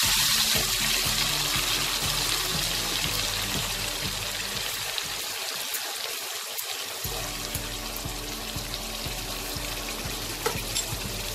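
A wet cumin, green chilli and tomato paste sizzling in hot oil with fried potato cubes as a spatula stirs it. The sizzle is loudest at first and slowly dies down, with a sharp spatula tap against the pan near the end.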